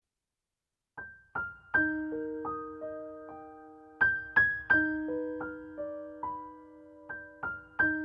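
Background music: a gentle piano melody of single notes, each struck and left to ring and fade, starting about a second in after silence.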